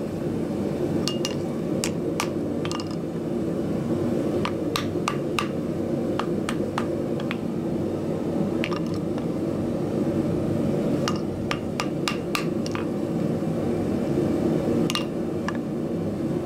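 Irregular, widely spaced hammer blows on a hot axe head held on a drift against the anvil, some with a short metallic ring: small straightening adjustments at the end of shaping the eye. A steady low roar runs underneath.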